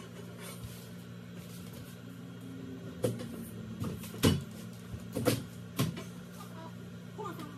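Steel platform bed frame parts clanking and knocking as the metal bars are handled and fitted together: a string of sharp knocks starting about three seconds in, over a steady low hum.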